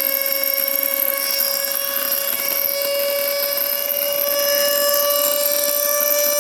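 The built-in electric air pump of a King Koil air mattress runs with a loud, steady whine over a hiss. The owner takes the noise for something loose and broken inside the pump motor.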